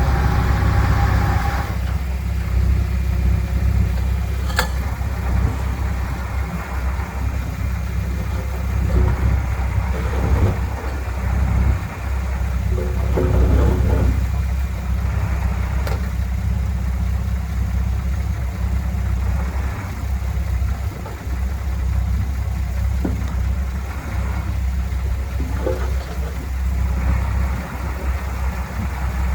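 Heavy diesel earthmoving machine engine running steadily, its sound mostly low-pitched, with a sharp click about four and a half seconds in and another around sixteen seconds.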